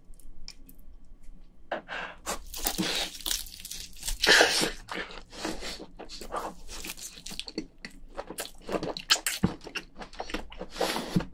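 A person eating soft, freshly cracked crayfish meat close to the microphone: biting and chewing in a run of irregular wet clicks and smacks, loudest a few seconds in.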